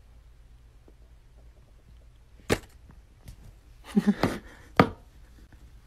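Hollow plastic knocks from a drinking cup as a cat moves around with its head inside it. There is one sharp knock about two and a half seconds in, a cluster of knocks around four seconds, and a last sharp knock just before five seconds.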